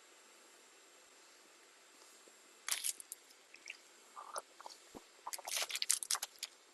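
Plastic parts of a robot vacuum being cleaned and handled by hand: short scratchy rubbing strokes and light clicks, starting after a quiet couple of seconds and thickest in the second half.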